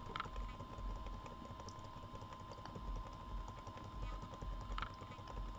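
Toshiba Satellite laptop keyboard keys being tapped, faint and irregular, as someone presses keys during boot to try to enter BIOS setup. A faint steady high tone runs underneath.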